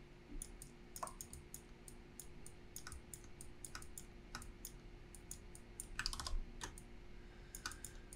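Faint, irregular clicking of a computer keyboard and mouse, some presses bunched in quick runs, including an undo shortcut pressed twice. A faint steady hum runs underneath.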